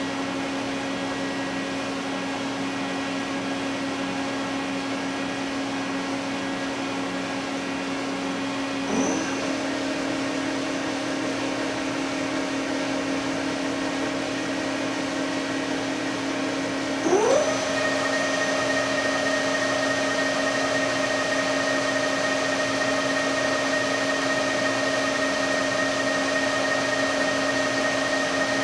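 Mori Seiki TL-40A CNC lathe running with a steady motor whine and hum. The whine glides quickly up to a higher pitch twice, about nine seconds in and again about seventeen seconds in, as the machine speeds up.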